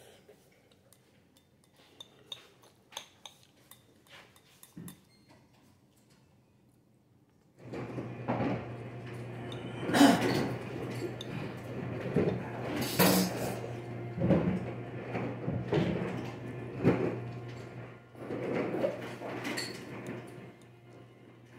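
Eating from a ceramic bowl with chopsticks: chopsticks clicking and scraping against the bowl, with mouth sounds of eating and sipping as the bowl is tipped to the lips near the end. Only faint taps at first; about a third of the way in the clicks and knocks turn much louder and a steady low hum starts.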